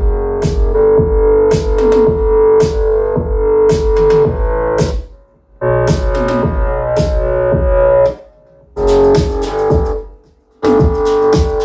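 An electronic pop track with a steady beat playing loud through a JBL PartyBox Encore portable party speaker. The sound cuts out abruptly three times for about half a second, about five, eight and ten seconds in. Each time the volume is pushed past 100% the speaker drops its output, its built-in limit kicking in.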